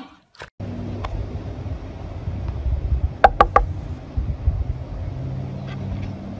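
Steady low outdoor rumble with three quick, high-pitched squeaks from a small animal a little over three seconds in.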